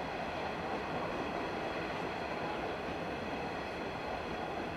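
Empty grain hopper wagons rolling past on steel rails: a steady rumbling rush of wheels on track.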